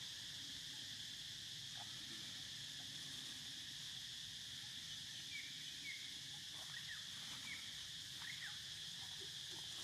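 Steady high insect chorus droning evenly, with a few short, high chirps in the second half.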